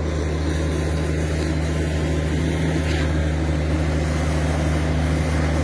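Concrete boom pump truck's engine running steadily under load: a constant low drone with a steady hum, no change in pitch.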